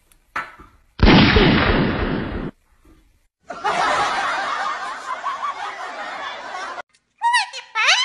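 Laughter in short segments that start and stop abruptly, followed near the end by a few quick whistled glides that rise and fall in pitch.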